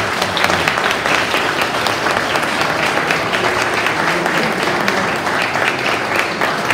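A small seated group applauding, with dense, steady hand-clapping throughout.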